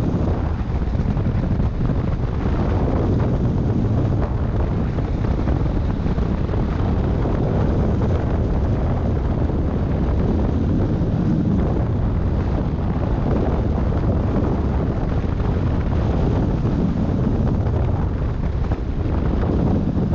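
Steady rush of wind buffeting the microphone of a hang glider in flight, a deep, even rumble with no breaks.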